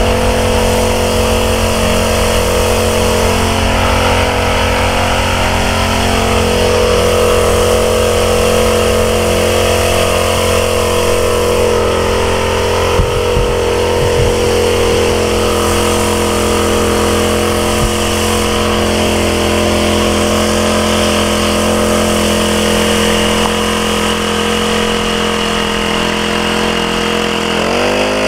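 Small engine of a backpack power sprayer running steadily, driving the spray pump. Near the end its pitch jumps up as it speeds up.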